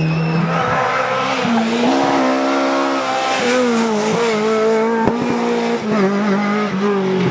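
Rally car engine at high revs, its pitch rising and falling with throttle changes as the car drives a special stage.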